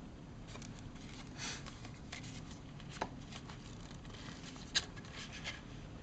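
Paper and thin cardboard being handled: the watch's instruction booklet and its card folder, soft rustling with small clicks, a sharper tap about three seconds in and a louder snap just before five seconds.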